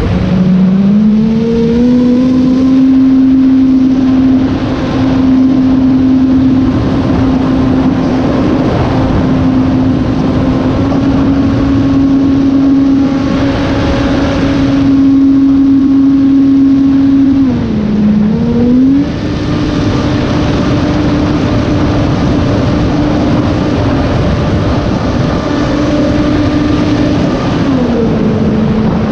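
Electric motor and propeller of a Sky Surfer 3 RC plane in flight, recorded on board: a steady whine that climbs in pitch at the start, dips and comes back up about two-thirds through, and drops near the end as the throttle eases. Wind rushes over the camera microphone throughout.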